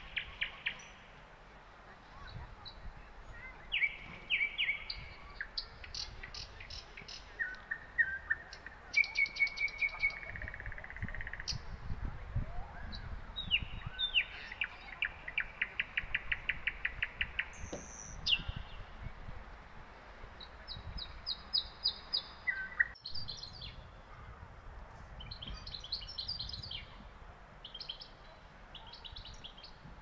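Songbirds singing and calling: quick trills and runs of short high chirps, one after another in several different patterns, over a low rumble.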